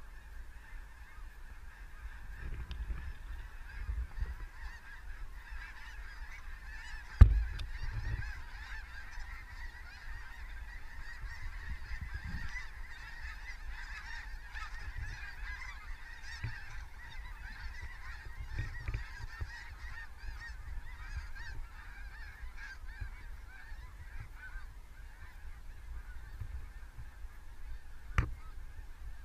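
A large flock of geese calling overhead: a steady, dense chatter of many overlapping honks. A sharp knock comes about seven seconds in, the loudest sound, and a fainter one near the end.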